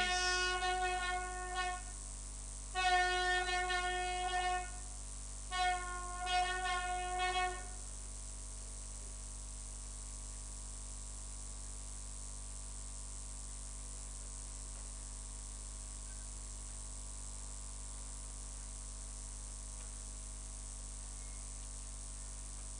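A wind instrument, a horn or trumpet, sounds three long blasts of about two seconds each on nearly the same note, each wavering at the end. After the blasts only a steady electrical mains hum from the sound system remains.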